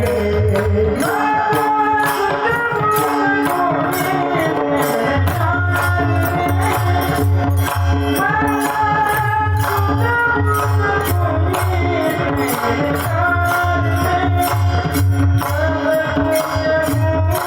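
Marathi devotional bhajan music: a held, gliding melody over a steady jingling percussion beat and a low pulsing drum.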